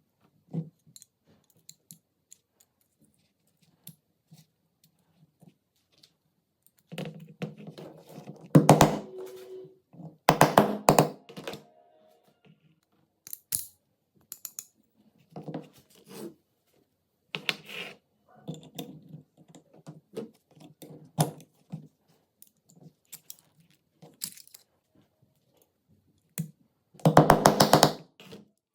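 Small metal parts clicking, tapping and scraping in irregular bursts, with several quick runs of rattling clicks, the loudest near the end.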